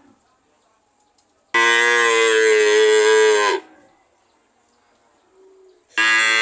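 Cow mooing: one loud, steady moo lasting about two seconds, then a second moo begins near the end.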